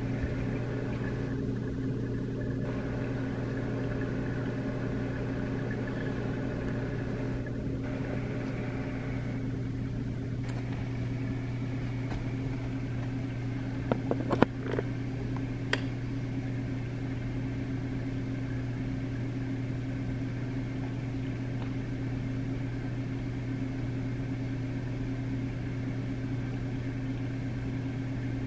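Aquarium pumps humming steadily, with a few sharp clicks about halfway through.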